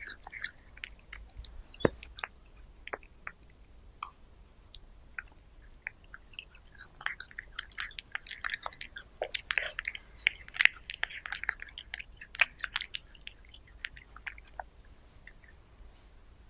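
Domestic cat chewing chunks of raw meat close to the microphone: scattered wet clicks and crunches, busiest in the middle and thinning out near the end.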